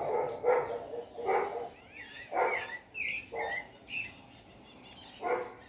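A dog barking about six times at irregular intervals, the loudest sound, while a sabiá thrush sings short warbling phrases in the middle stretch.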